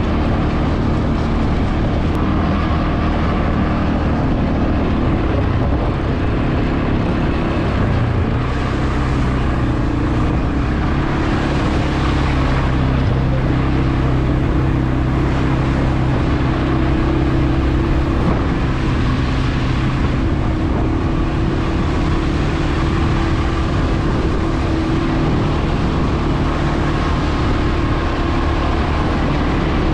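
CFmoto CForce 520 ATV's single-cylinder engine running steadily while under way. Its pitch steps up a little about eight seconds in, and a rushing noise rides over it for roughly the next twelve seconds.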